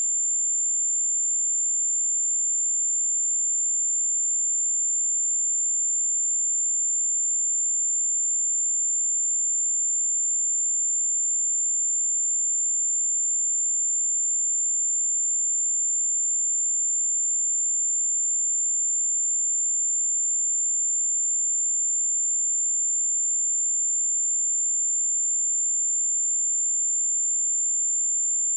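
A pure 7237 Hz sine-wave test tone: one steady, high-pitched whistle-like tone held at constant pitch and level.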